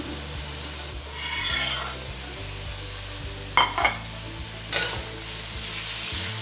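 Green beans and ground pork sizzling in hot oil in a wok, with a louder swell of sizzling about a second in as the beans hit the oil. A metal spatula clicks and scrapes against the wok a little after the middle and again about a second later as the food is stirred.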